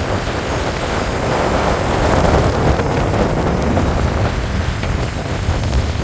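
Steady road noise heard from inside a moving car: a low rumble of tyres on a wet road with a rushing wind hiss, swelling slightly about two seconds in.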